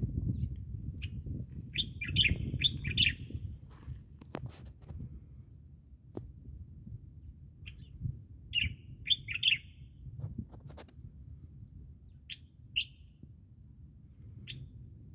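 Small birds chirping: short high chirps in a few quick clusters, over a low steady rumble.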